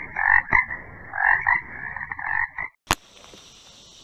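A raspy, croaking animal-like sound effect in a few pulsing swells, which stops abruptly about three seconds in with a sharp click. A faint steady outdoor hiss follows.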